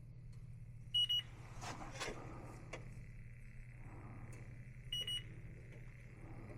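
Electronic refrigerant leak detector, set to high sensitivity, sweeping for a leak: a steady high tone with short beeps about a second in and again about five seconds in, over a steady low hum.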